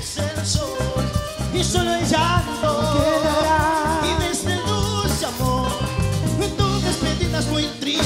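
Live Latin cumbia band playing, a male lead singer singing into a microphone over keyboard, congas and drum kit with a steady dance beat.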